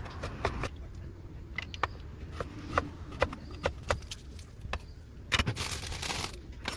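Wood fire crackling in a small wood-burning stove, with irregular sharp pops, and a brief rush of noise about five and a half seconds in.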